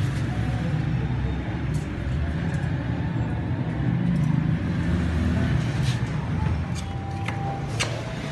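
A steady low rumble of background noise, with a few sharp clicks in the last couple of seconds.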